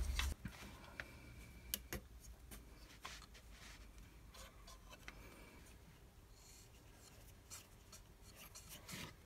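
Faint rubbing and a few light clicks from fingers turning a CNC spindle's shaft and collet by hand.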